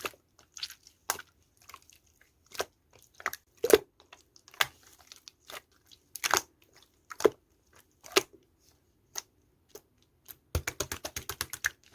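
Clear slime being squeezed and pressed by hand, giving sharp wet clicks and pops at uneven intervals, then a fast run of rapid clicks near the end.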